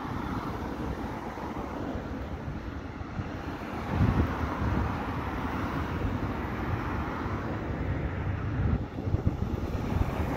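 Road traffic: cars and a box van driving past close by one after another, with steady engine and tyre noise. It swells as a vehicle passes about four seconds in, and again near the end.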